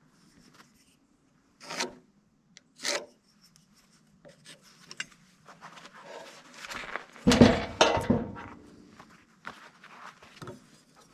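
A heavy sawn timber block and a metal square handled on a sawmill bed. Two short scrapes come first. About seven seconds in there is a heavier knock and rubbing as the block is shifted, followed by a few light knocks.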